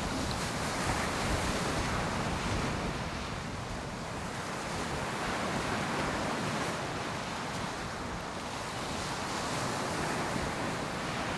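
Ocean surf washing onto a beach: a continuous rush of breaking waves, swelling and easing every few seconds, with some wind buffeting the microphone.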